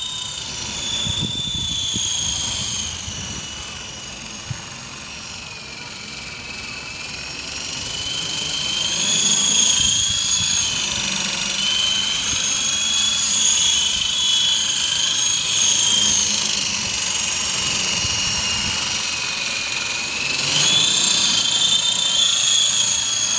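Esky Big Lama coaxial RC helicopter in flight: the high whine of its battery-powered electric motors and rotors, wavering up and down in pitch as the throttle changes. It grows louder as the helicopter comes closer about eight seconds in and again near the end.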